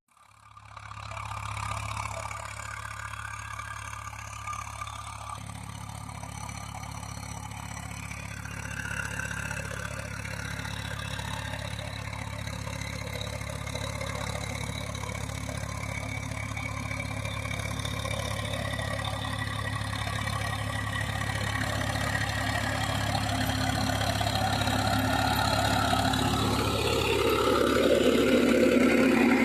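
Diesel engine of a Swaraj 744 XT tractor running steadily, getting gradually louder and fuller over the last few seconds.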